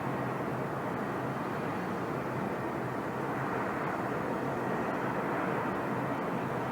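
Steady rushing background noise, even throughout, with no distinct calls or knocks.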